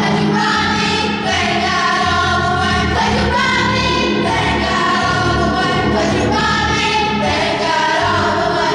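Children's choir singing, holding each note for about a second before moving to the next, over a low, steady accompaniment.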